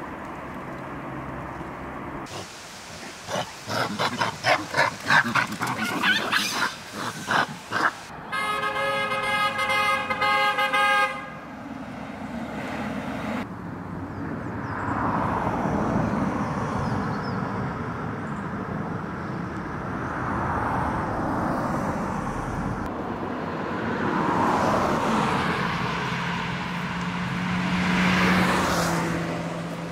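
A vehicle horn sounds one steady blast of about three seconds, just after a string of short, loud, irregular sounds. Then road traffic passes several times, each vehicle swelling and fading.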